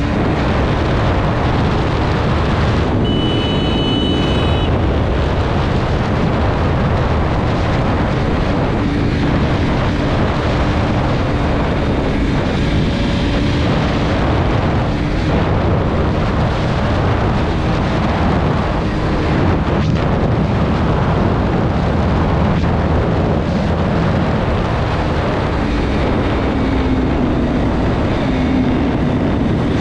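KTM RC200's single-cylinder engine running at a steady cruising speed, with heavy wind rush on the microphone.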